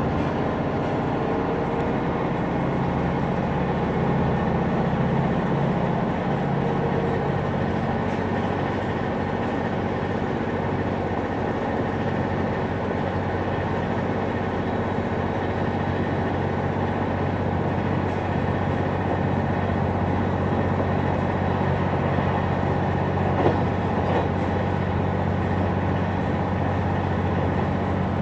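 Cabin noise of a KiHa 187 series diesel railcar under way: a steady drone from its underfloor diesel engine over the running noise of wheels on rail.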